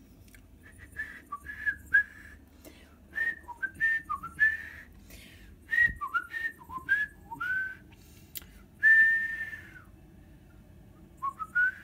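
A person whistling a loose tune of short, clear notes that slide up and down, with one long held note about nine seconds in; a few sharp clicks and knocks from handling sound in between.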